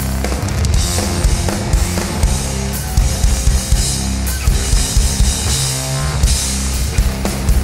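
Electronic rock band playing live in an instrumental passage with no singing: a drum kit pounding kick and snare under cymbal wash, over sustained low bass and keyboard notes.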